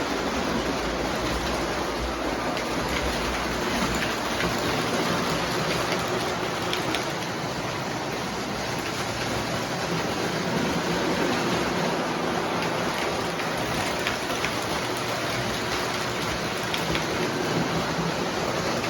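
O gauge model train running on three-rail track: a steady rolling rumble of the wheels on the rails, with a few faint clicks.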